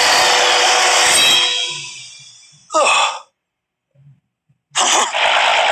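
Cartoon soundtrack: loud action music and effects fade away, then a short sigh-like vocal sound comes about three seconds in. After a moment of near silence, loud clamour with groaning voices starts again near the end.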